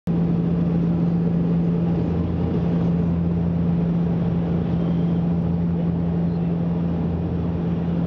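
Cabin drone of a Bombardier Dash 8 Q400 turboprop in flight on approach: its Pratt & Whitney PW150A engines and six-bladed propellers make a steady low hum with one strong constant tone over the rush of airflow, heard from a window seat beside the engine.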